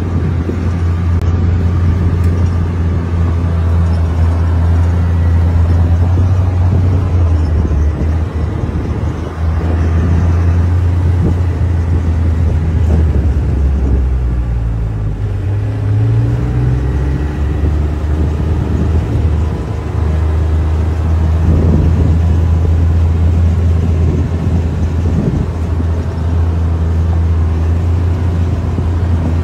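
Side-by-side off-road vehicle's engine running steadily while driving, heard from on board. About halfway through, the engine note dips and then climbs again as the vehicle slows and picks up speed.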